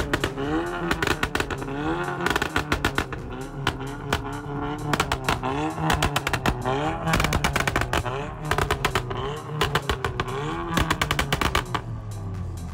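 Modified car exhaust popping and crackling in rapid, irregular volleys of sharp bangs (anti-lag style 'pops and bangs') while the engine is revved up and down repeatedly.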